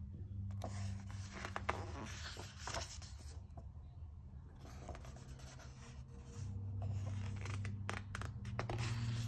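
Paper rubbing and rustling as a graphic novel's pages are handled and turned, in scattered short scrapes over a steady low hum.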